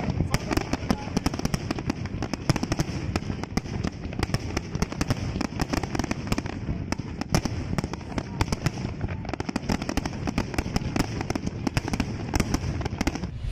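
Large aerial fireworks display: many shells bursting in quick succession, a dense, continuous run of bangs and crackling with no pause.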